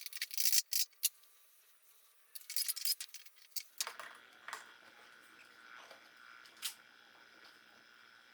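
Small metal drum hardware clinking and rattling as the snare drum is taken apart: quick clusters of sharp clicks in the first second and again around two and a half to three and a half seconds in, then a few lighter clicks over a faint steady hum.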